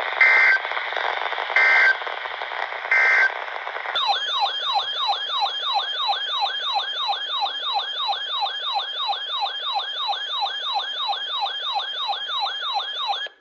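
Three short bursts of EAS digital data tones, the end-of-message code after a weather warning, heard over radio hiss. About four seconds in, an electronic alert tone starts, sweeping up and down about three times a second, and cuts off near the end.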